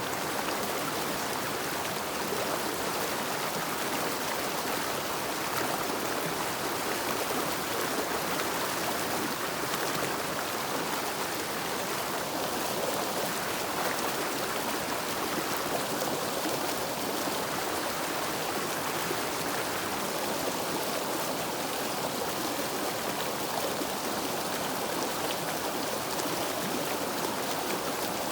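River water flowing, a steady even rush that does not change.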